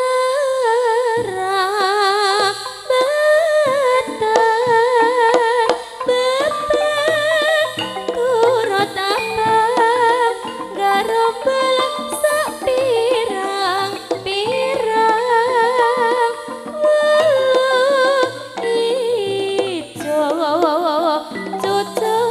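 A Javanese sinden (female singer) singing a gending through a microphone, her long held notes wavering with heavy vibrato, over gamelan accompaniment with steady ringing tones and kendang drum strokes.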